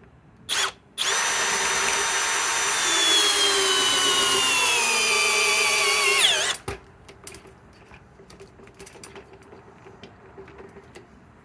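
Hercules 1200 in-lb cordless drill driver on speed 1 driving a large lag screw into wood: a brief tap of the trigger, then about five seconds of steady motor and gear whine that slowly drops in pitch as the lag bites harder. It falls sharply and cuts off as the drill bogs down, leaving the lag almost but not fully seated.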